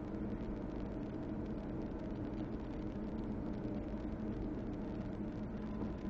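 Car driving at low speed, its steady engine and road noise heard from inside the cabin.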